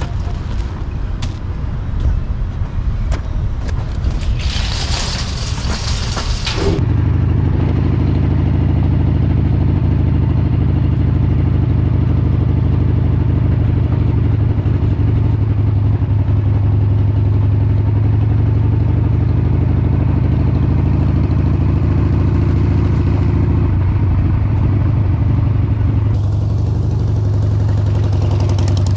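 Scattered knocks and a hiss for the first several seconds, then a sudden change to a Harley-Davidson V-twin engine running steadily at a low pitch as the motorcycle is ridden.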